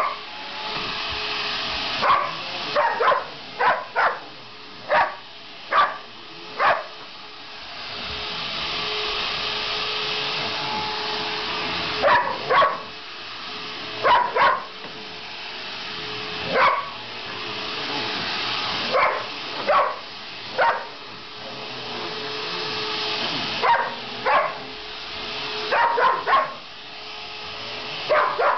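An upright vacuum cleaner running with a steady hum while a dog barks at it, some twenty sharp barks in quick runs and pairs, with a pause of about five seconds between the first run and the next.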